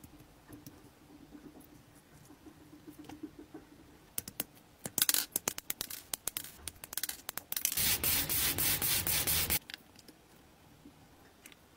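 Small plastic scale-model parts handled close up: scattered light clicks and short scrapes from about four seconds in, then nearly two seconds of loud, dense scratching and rubbing that stops abruptly.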